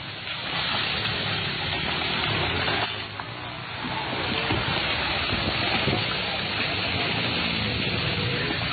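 Landslide: a steady rushing roar of mud, rock and debris pouring down a hillside, with a brief dip about three seconds in.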